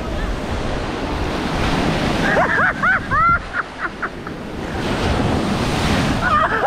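Ocean surf breaking and washing up around the feet, a steady rush that swells and ebbs, with wind on the microphone. About two and a half seconds in, a person gives a few short high-pitched cries, and another brief cry comes near the end.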